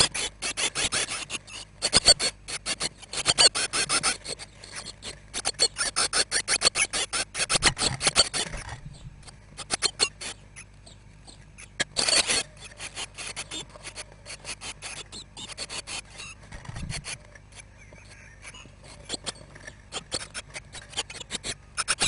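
Blue tit nestlings begging at close range inside a wooden nest box, a rapid, raspy chatter of calls in loud bursts as the adult comes in to feed them. The loudest bursts come at the start, from about three to eight seconds in, and again around twelve seconds in, with scattered quieter calls and scuffling between.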